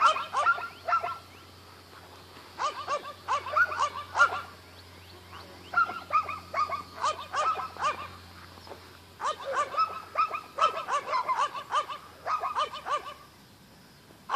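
Dog barking and yipping in quick bursts of short, high calls, about five bursts with pauses between them.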